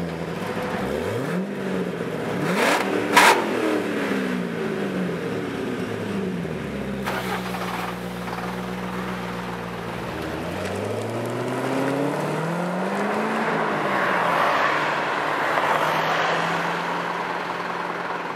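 Modified Chevrolet Corvette Z06's V8, heard at its quad exhaust, revved several times and settling back to a steady idle between blips. Two sharp cracks come during the second rev, a few seconds in.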